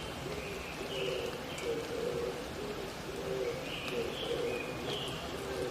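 Mountain doves (oriental turtle doves) cooing in a steady repeated series of low notes, while a smaller bird gives short high chirps in little groups, over a steady hiss of rain.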